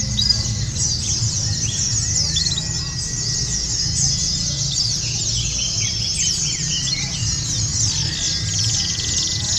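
A chorus of many white-eyes (pleci) singing at once: rapid, overlapping high chirps and trills with no gaps. A steady low rumble runs underneath.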